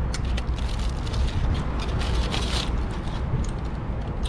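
Wind buffeting the microphone as a steady low rumble, under a run of crackling and crinkling from a foil-wrapped burrito being handled, with a louder rustle about halfway.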